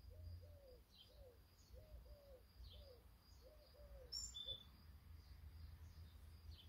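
Faint birdsong: a run of short, low, arched hooting notes, often in pairs, through the first four and a half seconds, thin high chirps about once a second, and one louder high chirp about four seconds in, over a low rumble.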